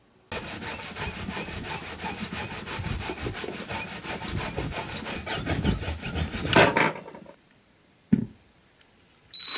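Hand-held wire brush scrubbing a cast metal ring with rapid rasping strokes, stopping about seven seconds in. A single click follows about a second later, and a small rotary tool's motor starts up right at the end.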